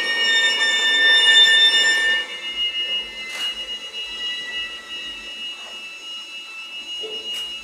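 Solo violin with live electronics holding high, sustained notes that slide slowly downward, loudest in the first two seconds and then fading to a softer held high tone. Two brief hissing swishes come about three and seven seconds in.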